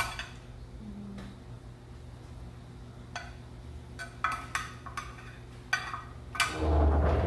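Metal serving spoon clinking and scraping against a glass bowl while scooping saucy curry onto a plate: a run of light, sharp clinks, then a louder dull thump near the end.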